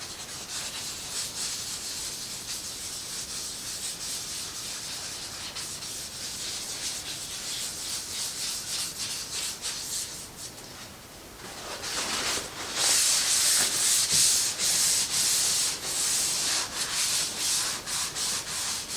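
A rag rubbing varnish onto and off the arm of a Halloween animatronic prop, in repeated scratchy wiping strokes that get louder and quicker about two-thirds of the way through.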